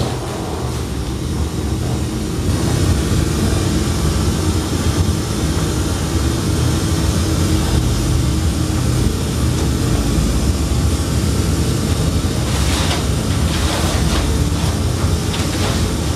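Loud, steady low rumbling drone, with a few sharp noisy hits near the end.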